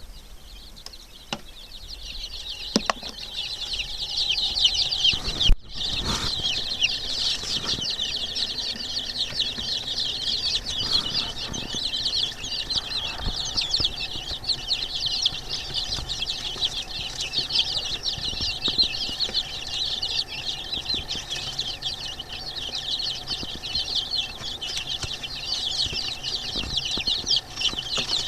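A brood of young chicks peeping all at once, a dense chorus of high, overlapping cheeps that swells over the first few seconds and then keeps on without a break.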